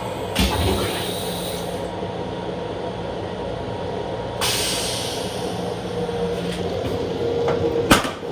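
Steady hum and rumble inside a Long Island Rail Road M7 electric railcar. There is a thump about half a second in, a hissing rush about four seconds in that fades over a second, and a sharp click near the end.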